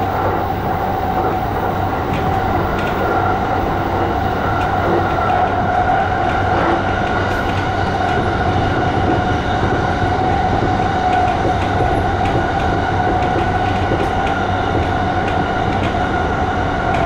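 JR East E235 series 1000 electric train running at steady speed, heard from inside the front car behind the cab: continuous wheel-on-rail rumble with a steady whine over it.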